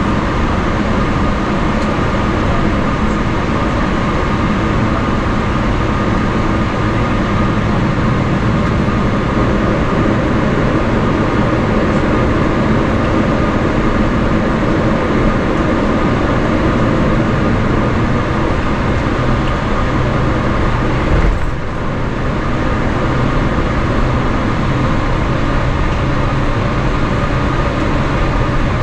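Cabin noise of a Boeing 777-300ER taxiing, heard from a window seat beside its GE90-115B engine: a steady low rumble and hiss with a constant high engine tone. A single bump comes about two-thirds of the way through.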